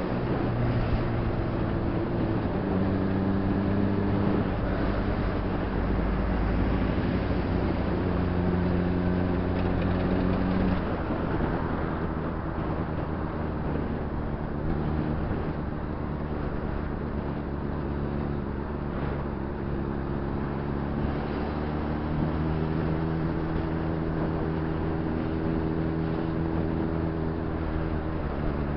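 Honda CBR600RR's inline-four engine running while riding in traffic, its pitch stepping up and down several times with throttle and gear changes, over steady road and wind noise.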